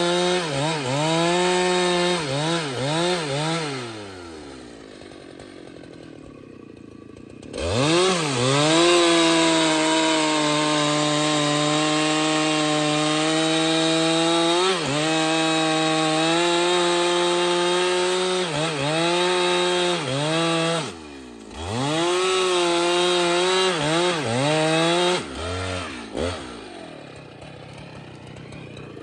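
Husqvarna 395XP two-stroke chainsaw cutting wood at high revs, its pitch dipping and recovering several times. It drops away to a much quieter stretch about four seconds in, runs at a high, steady pitch for some twelve seconds, then falls quiet again near the end.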